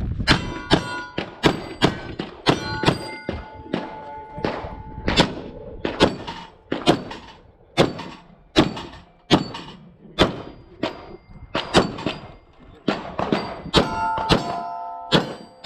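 A rapid string of pistol shots at steel targets, a few a second with short pauses between target arrays, the hit steel plates ringing after many of the shots.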